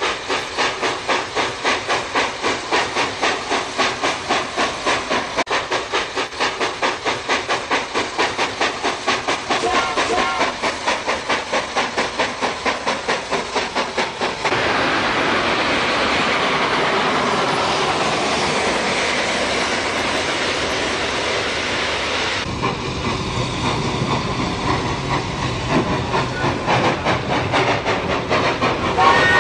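Steam locomotive working hard, its exhaust chuffing in quick, even beats about four a second. About halfway through, a steady hiss of steam takes over for several seconds. Then a lower rumble follows with fainter chuffs.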